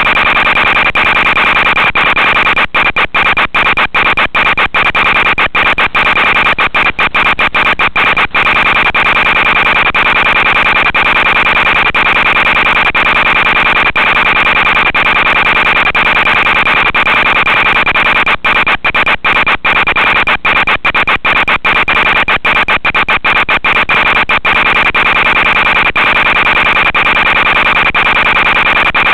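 Buzzing, warbling telemetry data tone from an EzOSD, carried on the FPV video transmitter's audio channel to feed the antenna tracker. It runs steadily and loudly, with a strong high tone inside it, and cuts out for split seconds many times between about three and eight seconds in and again around eighteen to twenty-four seconds in.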